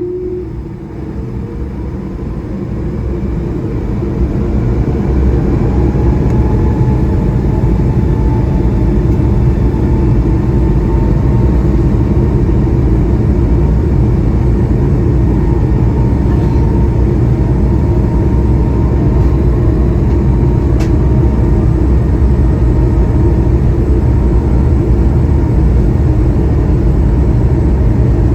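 Cabin sound of an Airbus A220-300's Pratt & Whitney PW1500G geared turbofans at takeoff thrust. A loud low rumble builds over the first few seconds and then holds steady, with a faint engine whine that slowly rises in pitch.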